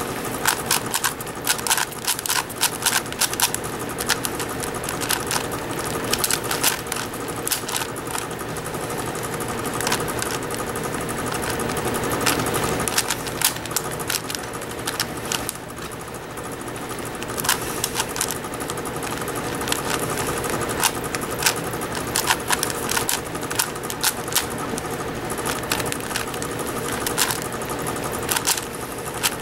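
5x5 plastic puzzle cube being turned fast in a speedsolve: rapid, irregular runs of clacking and clicking as the layers snap round, over a steady background hum.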